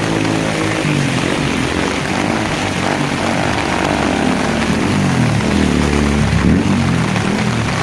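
A motor vehicle's engine running close by, its pitch steady at first, then sliding up and down, over the steady hiss of heavy rain.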